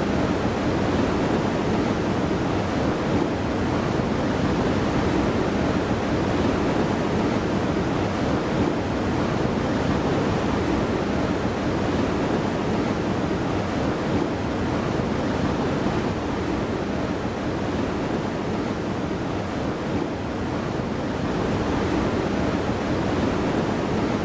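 Steady rushing of a fast mountain river running white through a narrow rocky canyon, an unbroken roar of water.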